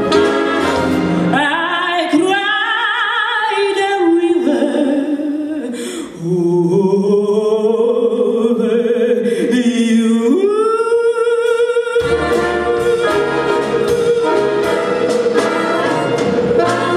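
Female vocalist singing a slow jazz ballad with wide vibrato over a sparse pop and brass band accompaniment. About twelve seconds in, the full band comes in with a steady beat under her long held note.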